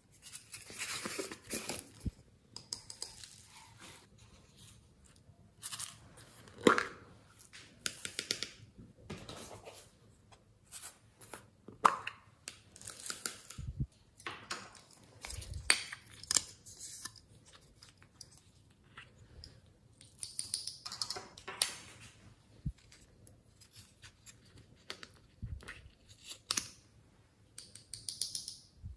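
Small plastic cups and toys handled on a table: foam beads poured from a plastic cup into a glass dish of slime glue with a brief rattling hiss near the start, then scattered taps, clicks and rustles.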